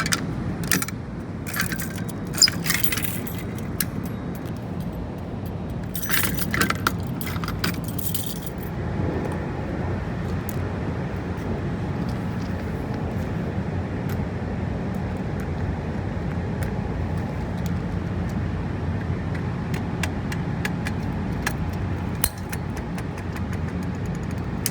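Several bursts of metallic jingling in the first several seconds, then a few scattered clicks, over a steady low rumble.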